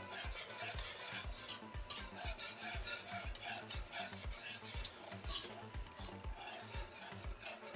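Wire whisk stirring white sauce in a metal pot, with even strokes about three a second that scrape and tap against the pot.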